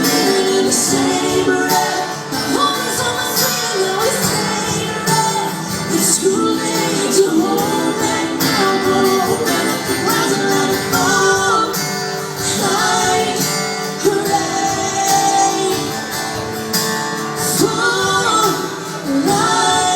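Live band music with a woman singing lead over guitar.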